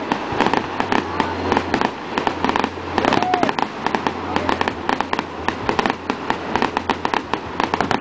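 Fireworks display: aerial shells bursting in quick succession, a dense run of sharp bangs and crackles with hardly a pause.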